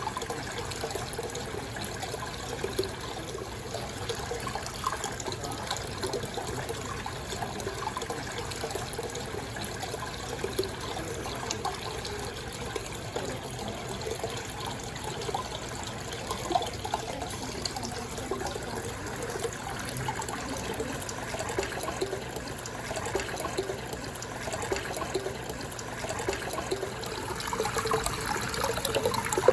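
Aquarium water running and bubbling: a steady trickle with many small bubbly splashes, growing a little louder near the end.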